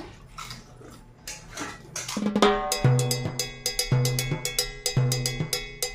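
Background music with a drum-kit beat that comes in about three seconds in: a deep bass note about once a second under fast, steady ticking percussion.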